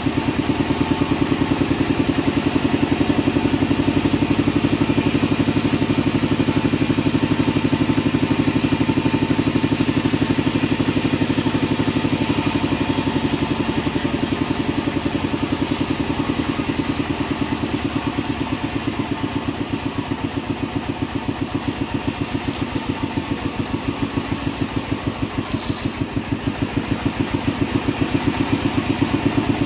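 Engine of a sawmill band saw running steadily with a fast, even pulse; it eases slightly in the middle and picks up again near the end.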